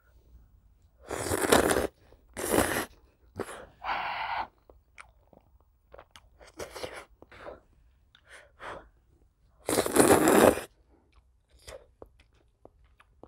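A person slurping up cheese-coated ramen noodles and chewing them, close to the microphone. There are two loud slurps about a second in and a third around ten seconds in, with soft wet chewing clicks between them.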